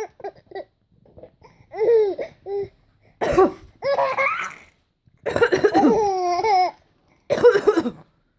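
A 7-month-old baby laughing in several bursts of giggles, with an adult's fake cough about three seconds in.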